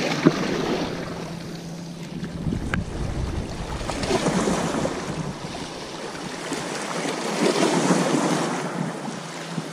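Small waves washing against the boulders of a rock harbour wall, swelling and falling back about three times, with wind buffeting the microphone. A single sharp click sounds right at the start.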